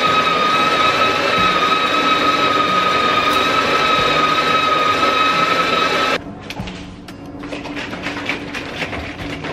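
Built-in burr grinder of an espresso machine grinding coffee beans: a steady motor whine that cuts off sharply about six seconds in. Light clicks and rattles follow.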